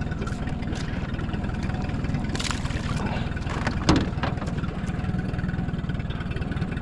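Boat motor idling steadily, with a few splashes and knocks as a cast net full of shrimp is hauled in; the loudest knock comes about four seconds in.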